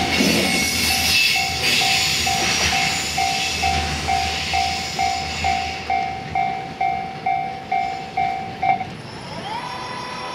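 Wheels of container freight wagons rolling away on the rails, fading over the first few seconds, under a Japanese level-crossing warning bell dinging about twice a second. The bell stops about nine seconds in, once the train has cleared the crossing.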